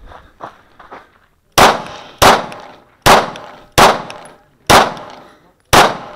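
Six shots from a Kahr CW9 9mm pistol firing 115-grain full metal jacket rounds. The shots come in quick succession, about one every three-quarters of a second to a second, starting about a second and a half in, each with a short echoing tail.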